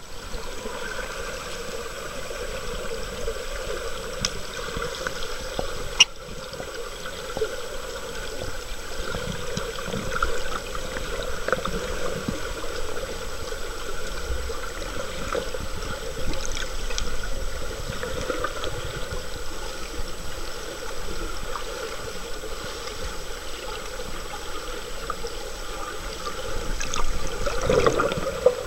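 Swimming-pool water heard underwater: a steady, muffled rush with faint gurgles and ticks as the runners churn the water. There is one sharp click about six seconds in and a louder swell of water noise near the end.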